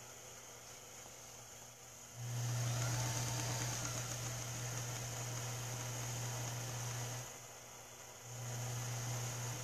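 Small electric motor of a rod-building lathe humming steadily as it spins a wrapped fishing rod. It starts about two seconds in, stops for about a second near the end, then runs again.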